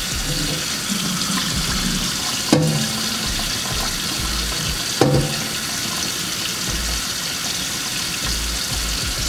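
Kitchen faucet running steadily into a metal sink while rice is rinsed by hand in a rice cooker's inner pot. Two sharp knocks, about two and a half seconds apart, stand out over the water.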